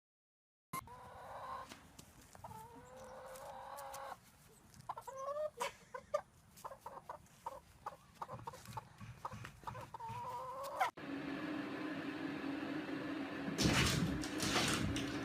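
Chickens clucking: short calls that rise and fall in pitch, mixed with small clicks and scratches. About eleven seconds in, it cuts to a steady low hum with a louder rustling burst near the end.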